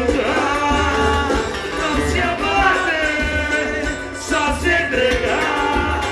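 Live pagode band music with a steady bass beat and a melody line over it.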